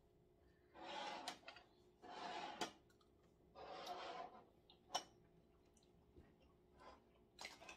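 Quiet dinner-table sounds: three short soft noises about a second apart near the start, and several light clicks of utensils against dishes, the sharpest about five seconds in.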